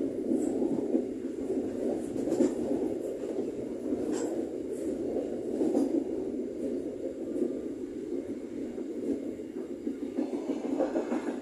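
Passenger train running along the track, heard from its rear end: a steady rumble of wheels on rail, with a few sharp clicks roughly every two seconds in the first half.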